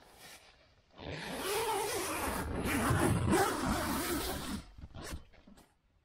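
Zipper on the door of a Naturehike Cloud Peak 2 tent being unzipped. One long rasping pull starts about a second in and lasts about three and a half seconds, followed by two short rasps near the end.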